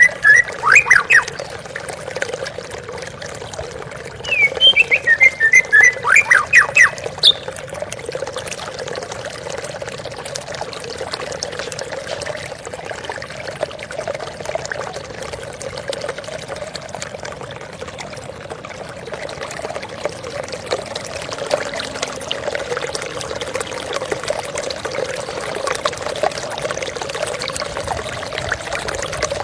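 Flowing water running steadily, with two short bursts of quick, falling bird chirps: one right at the start and one about four seconds in.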